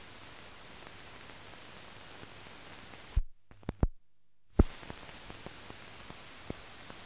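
Steady hiss and faint crackle of an old newsreel's optical film soundtrack with no programme sound. About three seconds in, a few loud pops with a second-long dropout between them, the last pop the loudest, then the hiss and scattered small clicks resume.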